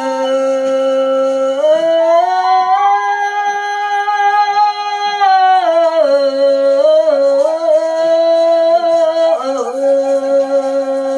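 A wordless vocal chant held on long notes that slide up and down between pitches, with a bamboo flute played alongside.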